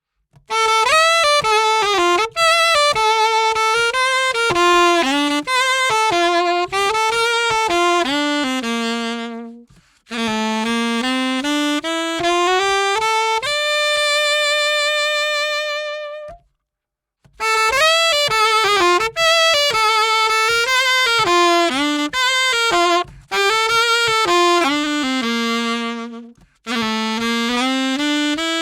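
Solo saxophone playing a melodic phrase that ends on a long held note about halfway through. After a short pause the same phrase starts again, each pass sounding the instrument on a different reed for a tone comparison.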